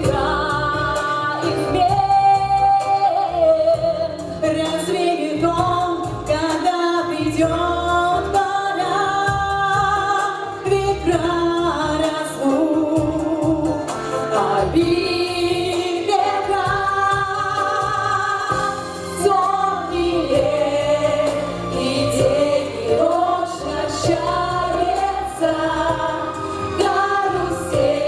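Mixed group of voices singing a song together in chorus over an instrumental accompaniment.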